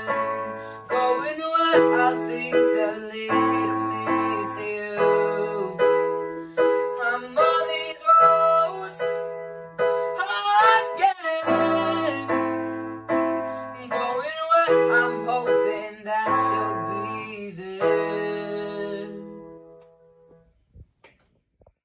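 Electronic keyboard played with a piano sound: two-handed chords over held bass notes, changing every second or two. The last chord dies away near the end.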